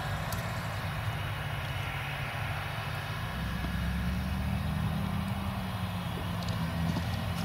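Tractor engine running steadily while pulling a grain overloading wagon across a field, a low drone that grows a little deeper and louder about three and a half seconds in.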